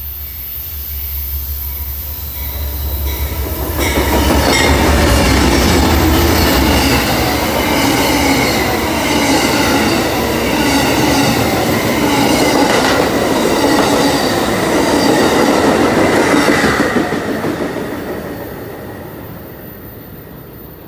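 Amtrak passenger train passing a station platform at speed. A low rumble builds as it approaches, then the cars rush and clatter past on the rails with a steady high squeal from the wheels. The sound fades as the last car goes by, in the final few seconds.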